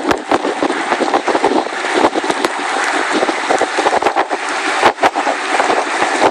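Steady rushing noise of floodwater pouring across the ground, with wind buffeting the microphone in frequent sharp bumps.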